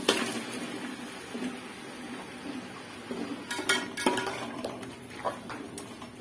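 Raw chicken pieces tipped from a metal colander into a metal cooking pot of masala, then a long metal spoon stirring and scraping against the pot, with a cluster of clinks and knocks about three and a half to four seconds in and a couple more near the end.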